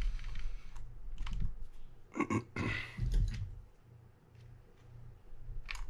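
Small clicks, taps and light scrapes of metal reel parts and hand tools as the handle side of a Shimano TLD 25 lever-drag reel is taken apart. The clicks are scattered, with the loudest cluster about two seconds in.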